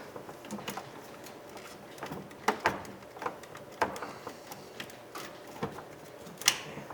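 Scattered plastic clicks and knocks as a stubborn wiring connector is worked loose from the back of a power window master switch, with the sharpest click near the end.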